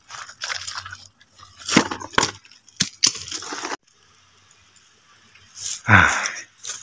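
Footsteps crunching and rustling through dry leaf litter and undergrowth, irregular steps for about four seconds. Then it turns quieter, leaving a faint steady high insect buzz, and a brief louder noise comes near the end.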